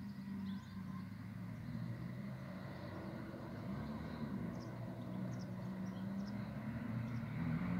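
Articulated diesel railcar ATR100 009 approaching from a distance: a low, steady engine hum that slowly grows louder as it nears.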